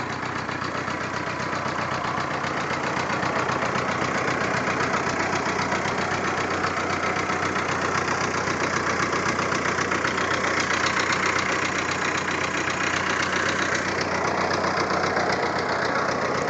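Volkswagen Jetta engine idling rough, with a fast steady pulsing, heard through a phone's microphone. The idle is off and irregular, the sign of a running fault that the owner is trying to show.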